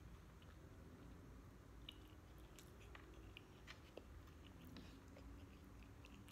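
Faint close-up chewing of sisig and rice with the mouth closed, with scattered small wet clicks.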